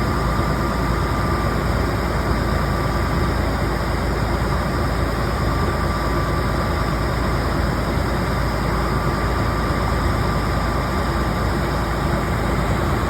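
Water-well drill rig's engine running steadily with a heavy low rumble, a faint steady high tone above it.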